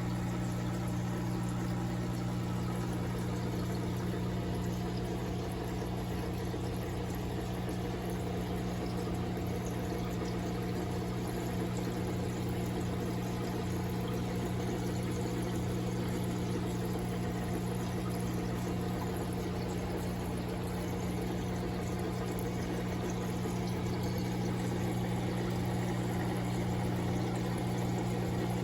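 Aquarium water running steadily: the filter's return pouring and splashing into the tank over a constant electrical hum from the tank's pump.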